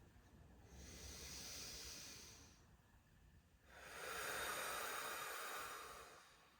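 A person breathing slowly and deeply: two long, hissing breaths, the second louder and longer than the first.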